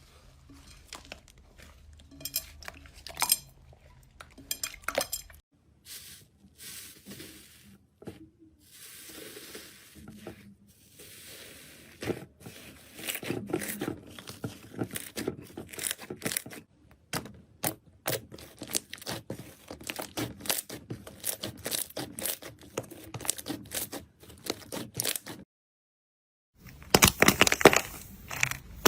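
Slime being squeezed, stretched and poked by hand, making rapid crackling and popping clicks, with a brief break near the end before louder crackling.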